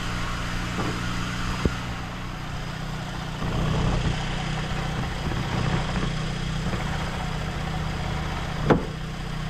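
Volkswagen Gol G3 engine running, heard from inside the car while the clutch pedal is worked. The sound grows louder about three and a half seconds in, and there is one sharp knock near the end. The owner takes the noise that comes when the clutch is pressed for a clutch fault rather than a gearbox fault.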